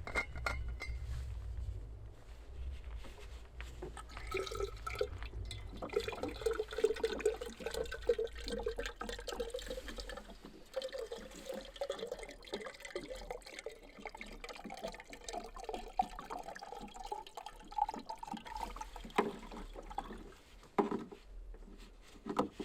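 Water being poured into a container, the pitch of the pour rising steadily as the vessel fills. The pour stops shortly before the end, followed by a few knocks.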